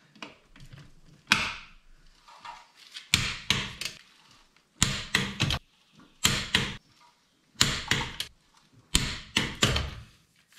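Hand tools at work refitting the car's wheel: a run of short bursts of metallic clicking and clatter, one about every second and a half.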